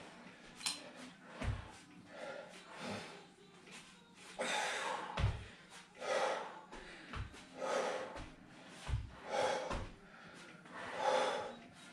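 Heavy breathing of a person straining in a plank. From about four seconds in, a strong out-breath comes about every second and a half, with a few dull low thumps in between.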